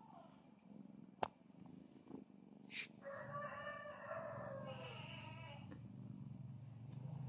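A cat's drawn-out cry lasting about three seconds, starting about three seconds in and sagging in pitch at the end, made during a kitten play-fight; a sharp click comes earlier, about a second in.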